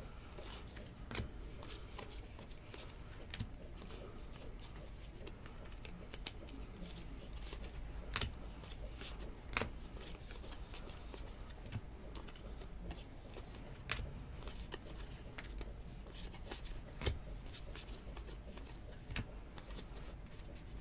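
Stack of football trading cards being flipped through one at a time in the hands: faint sliding of card against card, with scattered light clicks as edges snap, a few of them sharper.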